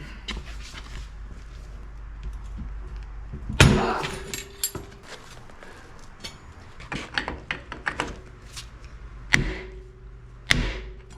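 Metal tools clanking on a hydraulic cylinder's gland nut as a wrench is worked on it: one loud clank a little over three seconds in that rings briefly, smaller clinks, then two more ringing clanks near the end.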